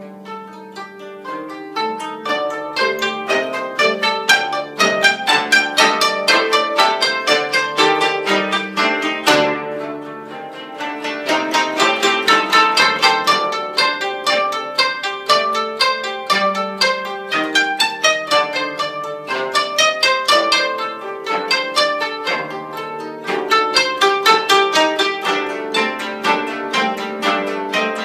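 Koto ensemble playing: many plucked notes in quick succession with several sounding at once. The music swells over the first few seconds and eases briefly about ten seconds in before building again.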